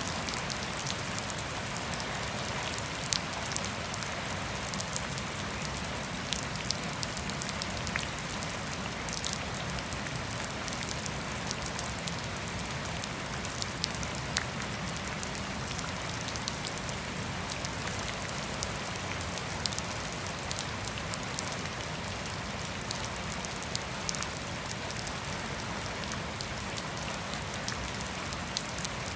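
Steady rain falling on grass, trees and a wet paved path, with sharp ticks of nearby drops scattered through the hiss.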